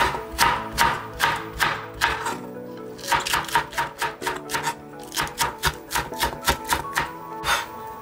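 Chef's knife slicing a green onion on a cutting board, the blade knocking the board with each cut at about two to four cuts a second, with a short pause a little past two seconds in. Soft background music plays throughout.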